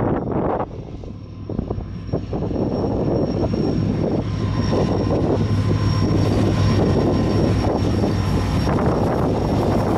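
GT22 diesel-electric freight locomotive approaching at low speed: a steady low engine drone that grows louder from about two seconds in, with a thin high steady tone above it.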